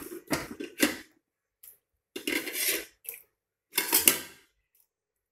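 Kitchen clatter from an aluminium pot and utensils as spices are put into it: several short knocks and clinks, with a longer scraping, rustling sound about two seconds in.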